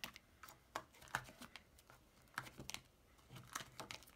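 Clear plastic Huggies wipes-container lids being flipped open one after another on a plastic sheet protector: a string of light, irregular plastic clicks and taps, some coming in quick little clusters.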